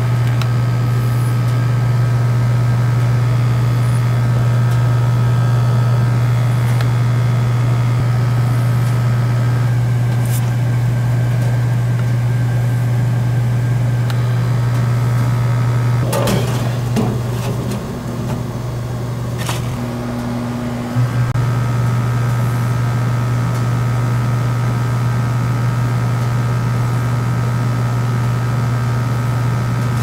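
Old gas furnace running with its burners lit, giving a steady low hum, fired for a combustion test. About halfway through the hum dips briefly and there are a few short knocks.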